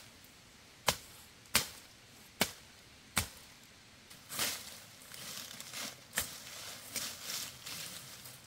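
Four sharp strikes, about three-quarters of a second apart, in the first three seconds, followed by rustling and a few lighter knocks.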